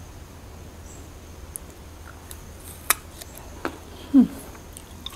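Eating sounds of a person chewing ripe phi phuan (nom khwai) fruit dipped in chili sauce: a few sharp mouth clicks and smacks, with a short 'mm' that falls in pitch about four seconds in, the loudest sound here.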